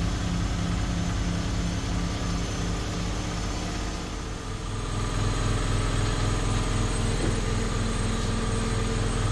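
Clothes-drying machine running, a steady low mechanical hum that pulses at first and grows louder about halfway through.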